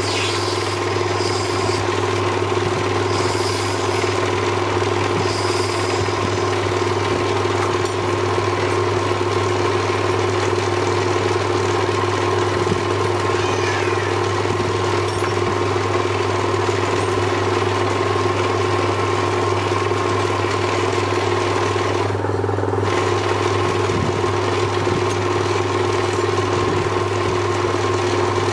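Small electric lathe running with a steady, unchanging motor hum while threads are hand-chased into the spinning ebonite pen blank.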